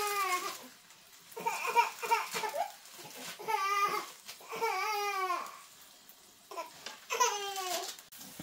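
A young child babbling and whining in about five short vocal outbursts, each rising and falling in pitch, with short gaps between them.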